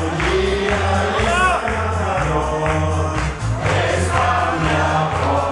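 Live music: a group of men singing together in chorus to strummed acoustic guitars over a steady beat.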